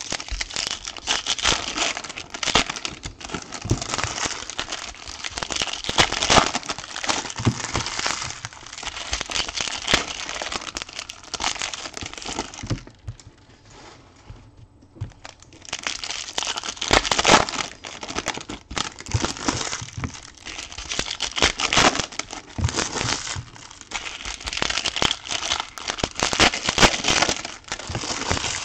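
Foil trading-card pack wrappers crinkling and tearing as packs are opened, with cards handled and set down onto stacks. There is a brief lull about halfway through.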